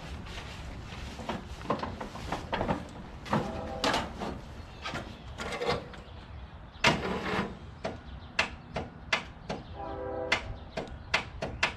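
Electric starter cranking a riding lawn tractor's small engine in uneven, labored strokes with bursts of starter whine; the engine does not catch. The engine is hard to turn over, with a starter the owner calls hinky.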